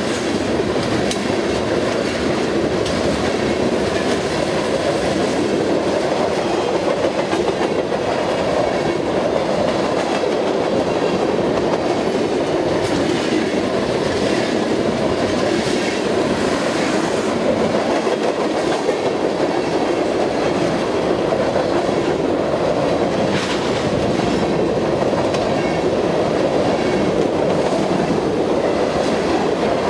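Loud, steady rumble of a freight train's covered hoppers and tank cars rolling past at speed, wheels clicking over the rail joints.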